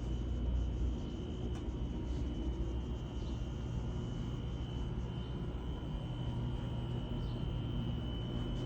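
Garage door travelling on its opener: a steady low motor rumble with a thin high whine. A few faint clicks come from the rollers, which are sleeved with boba straws and tie wire to damp their rattle.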